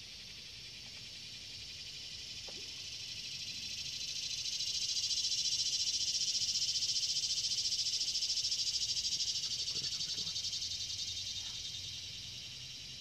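High insect buzz: a fast, pulsing drone that swells over the first few seconds, is loudest through the middle, and fades toward the end.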